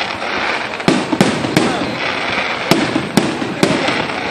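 Aerial fireworks bursting: a run of sharp bangs, several about half a second apart, over continuous crackling.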